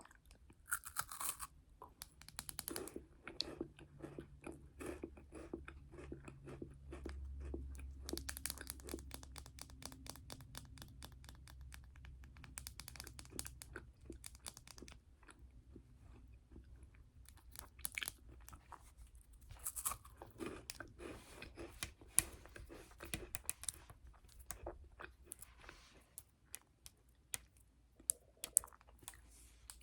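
Close-miked chewing and crunching of a chocolate snack, with many small crackles and short crisp rustles now and then.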